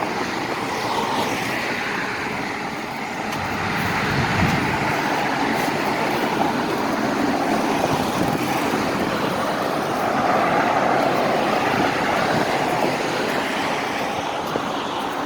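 Road traffic going by, a steady rush of tyre and engine noise that swells and fades as vehicles pass.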